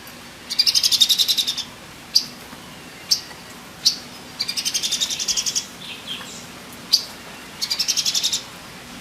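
A female cucak cungkok (a green leafbird, kept as a cucak ijo songbird) calling: three fast, high chattering trills of about a dozen notes a second, each under about a second and a half long, with single sharp chip notes between them.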